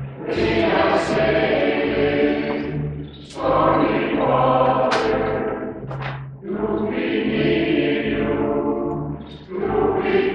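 A choir singing a song in phrases of about three seconds, accompanied by a drum kit.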